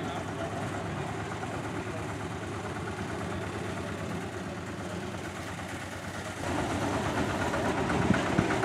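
Small narrow-gauge locomotive's diesel engine running steadily as it hauls a wagon slowly past, growing louder about six and a half seconds in as the locomotive comes near.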